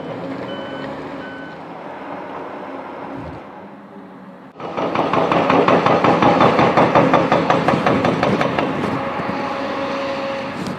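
Heavy machinery running, with two short beeps about a second in. About four and a half seconds in, the sound cuts to a louder machine noise with a rapid rattling rhythm.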